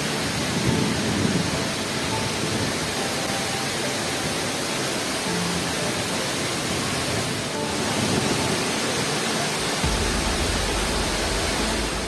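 Steady rushing of river water over rocks, a constant even hiss and roar. Background music's bass comes in near the end.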